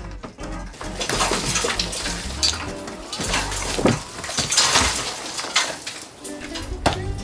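Demolition clatter: old boards and debris being pried and scraped loose with a bar, with many sharp knocks and rattles through the middle, over background music.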